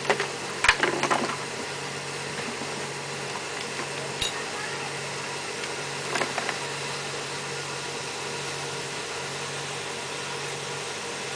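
Steady low hum of machinery running at a septic tank repair, with intermittent knocks and clatter from the work: a quick cluster near the start, one about four seconds in and a few more around six seconds in.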